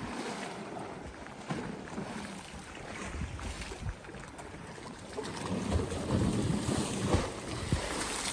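Wind buffeting the microphone over small sea waves lapping at the shore, the gusts growing louder about five seconds in.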